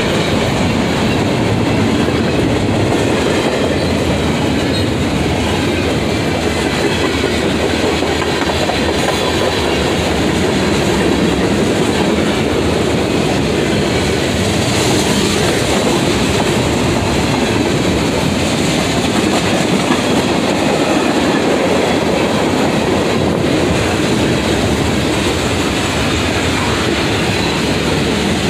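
Freight train cars rolling past close by: steel wheels clacking on the rails over a steady, unbroken rumble.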